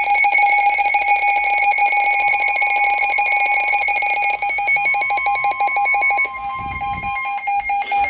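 Emergency alert tone ahead of a flash flood warning: a loud, steady-pitched electronic alarm that pulses rapidly and drops in level about six seconds in, with a brief low thump around then.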